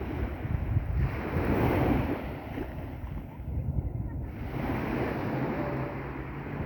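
Sea waves breaking and washing on the shore, with wind rumbling on the microphone. The surge swells about a second in, falls away around the middle, then another wave builds.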